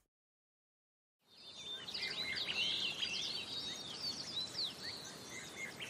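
Silence for about a second, then a fading-in chorus of small songbirds chirping and whistling over a faint outdoor background.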